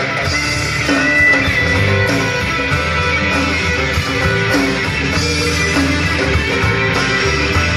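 Live band playing an instrumental break with electric guitar over bass and drums, a steady beat and a repeating guitar figure, with no singing.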